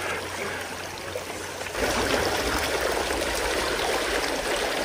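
Shallow creek water running and babbling over a gravel riffle in a steady wash, growing louder about two seconds in.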